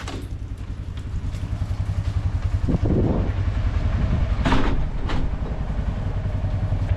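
Ranger utility vehicle's engine idling with a steady, fast low pulsing, and a couple of brief louder knocks partway through.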